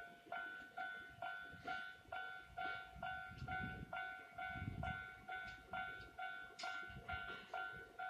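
Japanese railway level-crossing alarm ringing its two-tone electronic ding about twice a second, steady and unchanging. A low rumble swells underneath in the middle.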